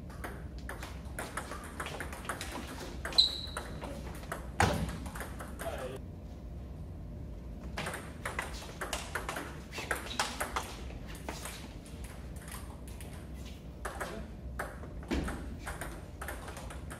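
Table tennis rally: a celluloid ping-pong ball clicking back and forth off the paddles and the table in quick runs, with short pauses between points. A couple of sharper, louder knocks come about three and four and a half seconds in, the first with a brief ringing ping.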